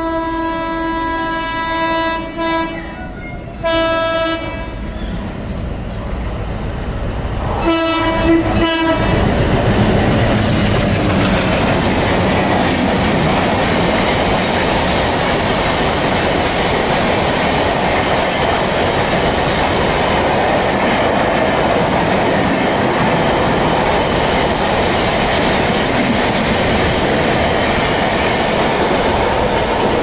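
Horn of an approaching Humsafar Express locomotive: a long blast and two shorter ones, then another short blast about eight seconds in. The train then runs through the station at speed, its coaches' wheels clattering steadily over the rail joints.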